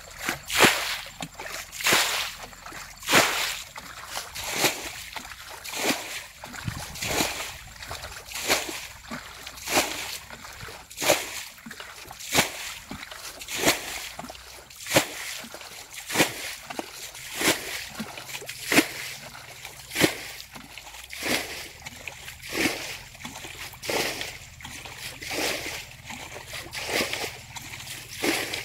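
Water being bailed out of a shallow muddy ditch with a plastic basin: splashes scooped and thrown in a steady rhythm, about three every four seconds.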